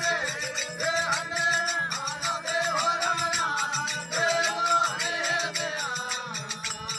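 Rajasthani folk bhajan: singing with sliding, ornamented pitch over a steady, rhythmic rattling percussion beat.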